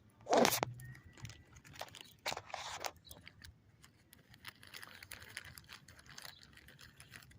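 Squirrel crunching a peanut: short crackling bites and crinkling shell, with scattered clicks and one brief louder burst about half a second in.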